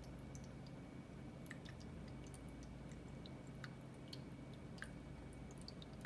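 Ashland small tabletop fountain running: water trickling and dripping down its tiers in irregular small drops, over the steady low hum of its pump.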